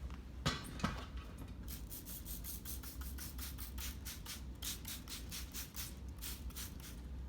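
Soapy water being rubbed onto a dirt-bike wheel rim in quick, even strokes, about three a second, to lubricate the rim for fitting the tyre bead. Two light knocks come in the first second.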